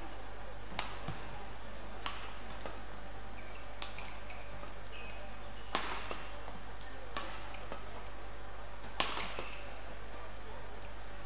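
Badminton rackets striking a shuttlecock in a fast doubles rally: about six sharp hits, one every one to two seconds, the loudest near the end, with shoes squeaking on the court between shots.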